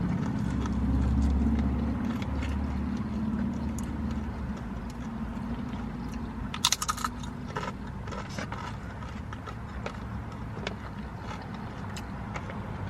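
Eating noises: a tortilla chip crunched with a quick run of sharp crunches about seven seconds in, with scattered smaller clicks, over a steady low rumble.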